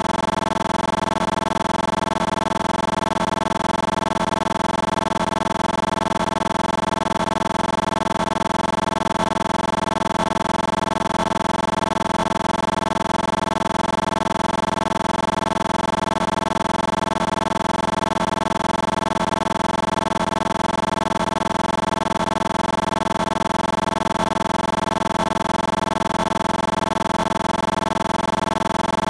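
A steady, unchanging hum made of several fixed tones at an even level.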